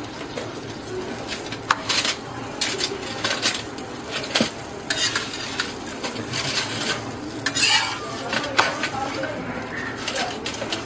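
Kulchas sizzling in butter on a hot tawa griddle, with a metal spatula repeatedly scraping and clinking against the pan as they are turned and pressed. The clicks come at uneven intervals.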